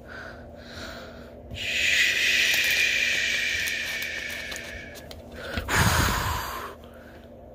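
A long breathy hiss from a person's mouth lasting over three seconds, its pitch sinking slightly, then a short breath puff near the end.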